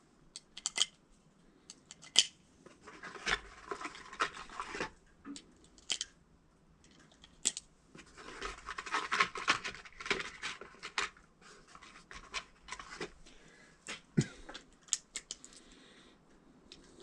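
9mm cartridges being pressed one at a time into a Glock pistol magazine: irregular sharp clicks and scraping of brass against metal.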